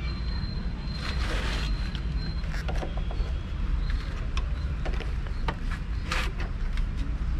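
Handlebar lever and its mount on an Apache 200 4V stunt bike being handled and worked during fitting: scattered small clicks, scrapes and creaks over a steady low rumble.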